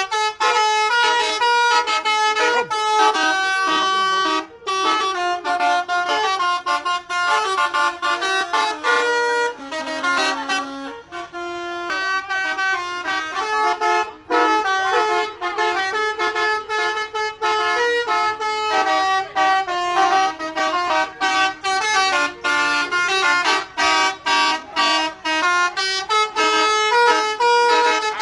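Bus telolet horn, a set of multi-note air horns, played as a quick tune of short, stepped notes in rapid succession.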